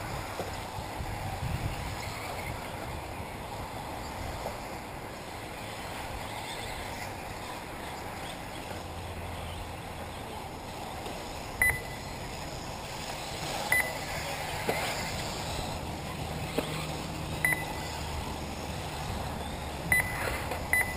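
1/8-scale electric RC buggies running on an off-road track, heard faintly under a steady outdoor noise bed. Short high beeps come about five times in the second half.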